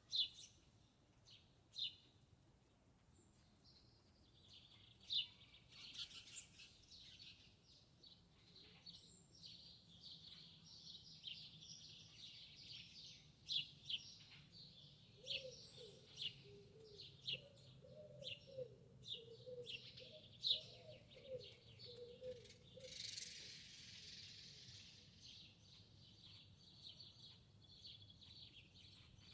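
Small birds chirping, with short high chirps repeating throughout. A run of low, wavering notes comes in the middle, and a brief rustling hiss follows a little after it.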